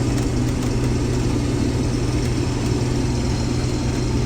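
Combine harvester running steadily while harvesting soybeans: an even engine and machinery hum with a strong low drone, unchanging in level.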